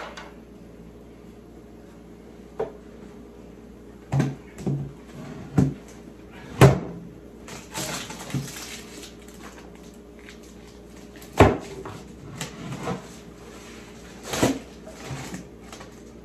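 Scattered knocks and clunks of wooden hive equipment being handled, about seven in all, with a short rustle near the middle, over a faint steady low hum.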